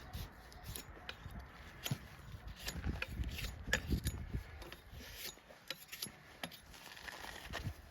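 Scattered light clicks and scrapes of hand tools working on a donkey's hoof, irregular and not in a steady rhythm.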